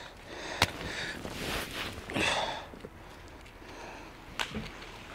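Sniffing and breathing. There is a sharp click about half a second in and another near the end, as the gloved hands handle scrap metal taken off a fishing magnet.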